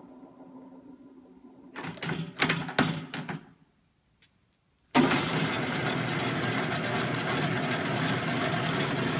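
Hobart H600 planetary mixer: a few sharp clunks from the speed-change lever, then after a brief silence the mixer comes on suddenly and runs with a loud, steady gear whir and fast rattle.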